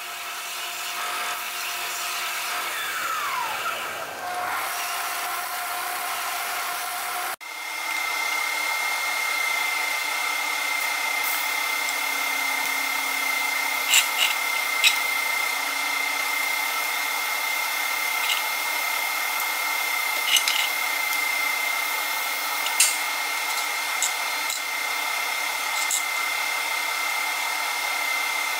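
Belt sander running as a small titanium piece is pressed against the belt, with the pitch dropping briefly partway through. After about seven seconds it cuts to a steady machine hum with a constant high whine, broken by a few short sharp clicks.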